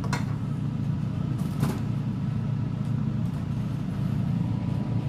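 Air fryer running while the chips cook: a steady low fan hum with a faint steady whine above it. Two light clicks come in the first two seconds.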